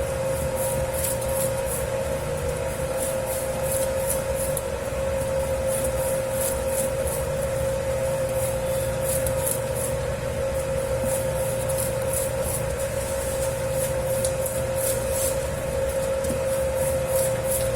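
Dough kneading machine running steadily with a 10 kg batch of pizza dough: a constant motor hum with a steady whine, and a quick, uneven swishing as the dough is worked in the bowl.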